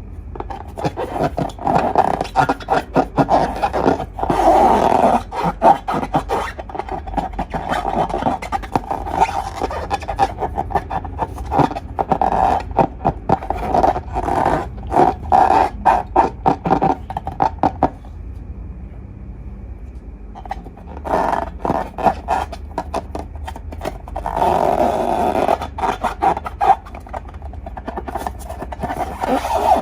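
Slime being squished and kneaded by hand, giving bursts of dense wet clicks and crackles. There is a short lull a little past the middle.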